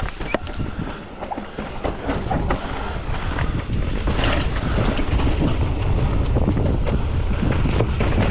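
Mountain bike rolling over a rough dirt trail: a steady rush of tyre noise with many small rattles and knocks. It grows louder over the first few seconds, then holds.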